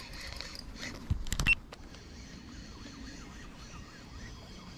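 Handling noise from a spinning rod and reel while a hooked fish is played, with a short loud burst of knocks about a second in.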